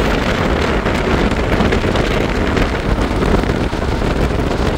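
Steady road and wind noise of a car driving across a bridge, heard from inside the car: an even low rumble with wind rushing over the microphone.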